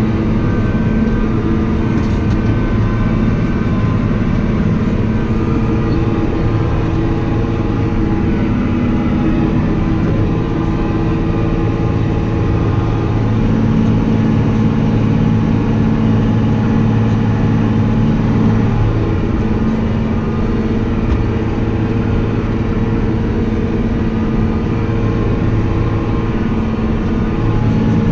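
A tractor engine running steadily, its pitch wavering slightly now and then.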